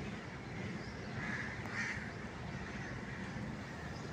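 Crows cawing, two short caws close together about a second and a half in, over steady background noise.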